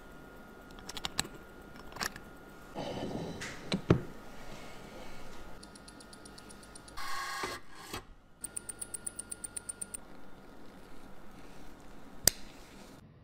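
Watch-bench handling sounds in quick succession: small clicks and rubbing as a wristwatch is handled. About halfway through, a mechanical watch ticks rapidly and evenly, about eight ticks a second, as picked up by a timegrapher's microphone. A sharp click comes near the end.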